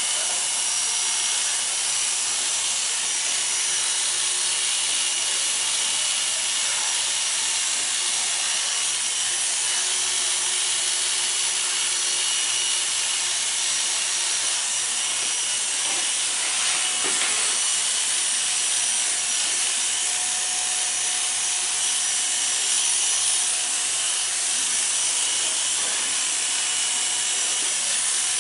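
Corded electric hair clippers running steadily as they cut short hair, the blades passing through hair lifted on a comb and then over the close-cropped back and side.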